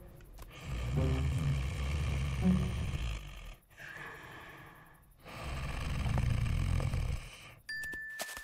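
A sleeping cartoon bull snoring: two long, low, rumbling snores with a short pause between them. A thin, steady high tone starts near the end.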